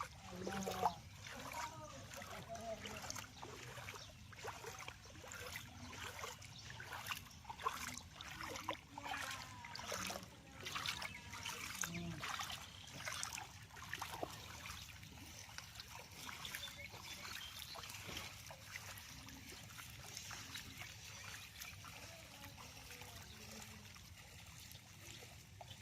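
Floodwater splashing and trickling, with many short irregular splashes over the first half and a steadier rush of water after that. Faint voices in the background.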